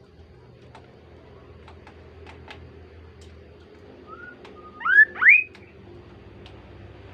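Kaso-kaso bird calling: a faint short note, then two loud rising whistles in quick succession about five seconds in.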